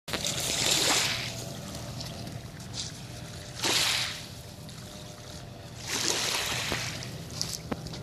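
Small waves washing onto a sandy shore in hissing surges about every three seconds, over the faint steady hum of a toy remote-control boat's motor out on the water.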